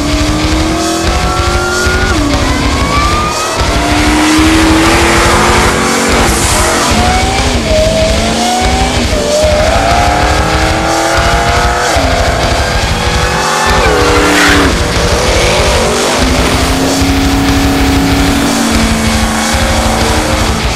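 Ford F-150 pickup's V8 engine accelerating hard, its pitch climbing and dropping back at each upshift, several times over. A music track with a heavy beat plays along.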